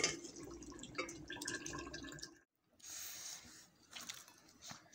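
Metal ladle stirring a liquid chicken curry in a metal pot, faint and wet. The stirring stops about halfway through, leaving only faint scattered sounds.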